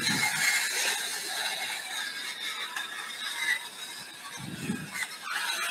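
Hand-held spice mill being twisted over the pot, grinding seasoning onto the meat with a steady rasping grind.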